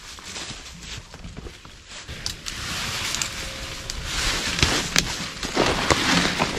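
Close rustling of brush, leaves and camouflage clothing against the microphone, with small snaps and handling knocks, building up about halfway through as a hunter settles into cover.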